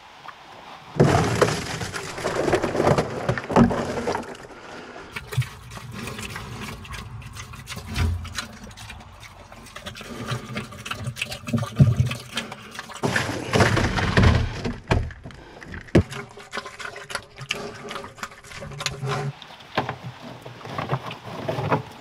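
Pigs eating grain feed close up: wet, noisy munching and snuffling through the feed, loudest in two stretches about a second in and about thirteen seconds in, with a few low grunts near the end.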